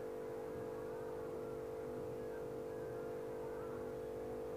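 A steady background hum, one even pitch that does not change.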